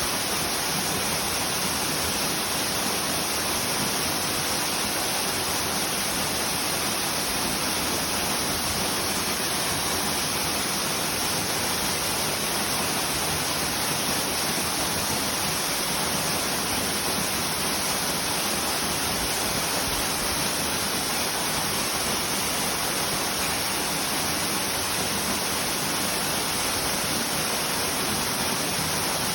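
Waterfall pouring steadily: an even, unbroken rush of falling water with no pauses or changes.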